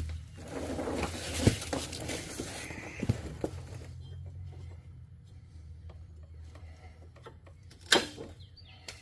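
Tin snips cutting through a riding lawnmower's rubber deck belt: scraping and rustling, then sharp snaps of the blades closing, about one and a half and three seconds in, and a louder one near the end.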